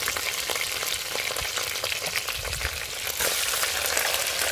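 Lobster frying in hot oil in a pot: a dense sizzle full of fine crackling pops, growing louder about three seconds in.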